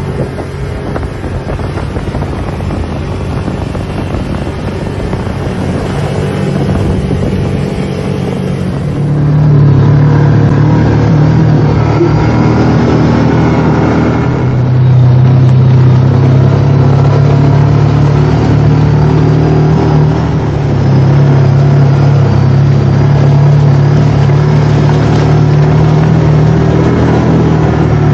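ATV engine running steadily under way. It gets markedly louder about a third of the way in, and the engine note shifts a little a couple of times after that.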